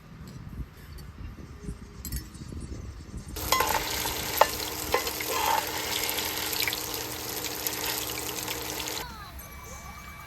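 Food sizzling as it fries in a pan: an even, crackling hiss that starts abruptly about three seconds in and cuts off abruptly near the end. Soft low knocks come before it.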